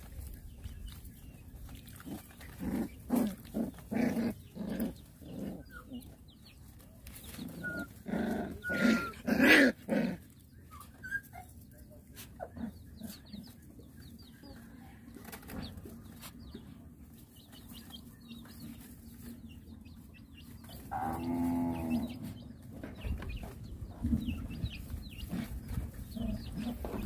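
Animal calls: runs of short calls, loudest about eight to ten seconds in, then one longer, drawn-out call a little after twenty seconds in.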